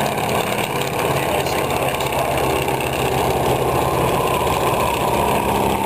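Engine of a Fokker Dr.I triplane flying overhead, a steady drone whose pitch eases down near the end.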